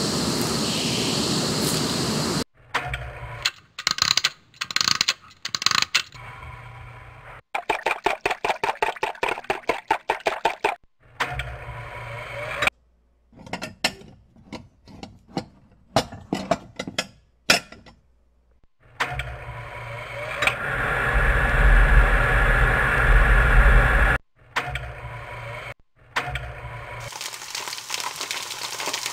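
A string of separate sound effects cut in one after another with abrupt gaps. First come scattered clicks and knocks, then a fast regular run of strokes at about six a second, then more sharp clicks. A long, loud, steady noisy stretch with a deep rumble follows.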